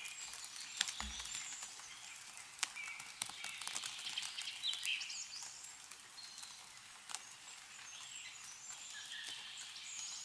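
Meltwater dripping from snow-covered trees in sharp, scattered ticks, with small birds chirping throughout.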